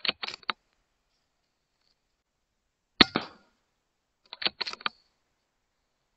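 A .22 PCP air rifle fires once about three seconds in, a sharp crack with a short tail. Quick clusters of metallic clicks come at the start and again about a second and a half after the shot: the action being cycled to load the next pellet.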